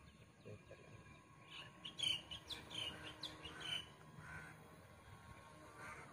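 Birds chirping: a quick run of short, sharp chirps in the middle, then a few softer calls.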